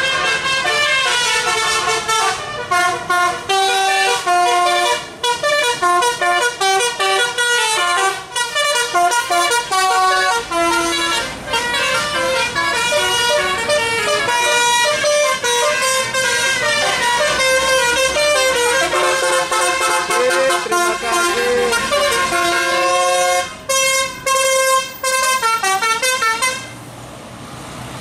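Telolet bus musical air horns playing a quick, tune-like run of notes over and over, with short gaps between phrases. They stop shortly before the end.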